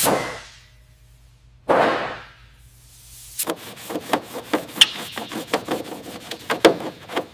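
A short whoosh of noise about two seconds in, then from about three and a half seconds an irregular run of sharp clicks and taps, several a second, like hand-tool work.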